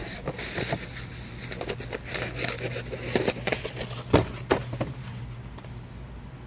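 A shipping box being opened by hand: cardboard and plastic packaging crackling, rustling and scraping, with a couple of sharp snaps about four seconds in, before the handling stops near the end.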